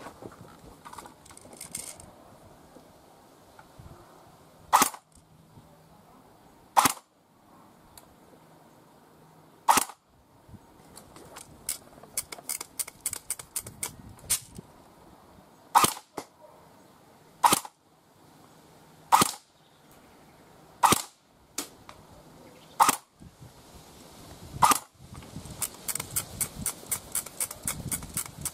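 Snow Wolf PPSh-41 airsoft electric gun firing single shots, about nine sharp cracks a couple of seconds apart, with runs of fainter fast clicking between them. It is shooting 0.20 g BBs at about 115 m/s (1.31 J) on the chronograph.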